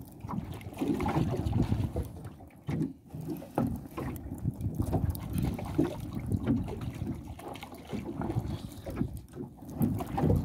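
Water slapping against the hull of a small drifting boat, with wind buffeting the microphone in an uneven low rumble and a few light knocks.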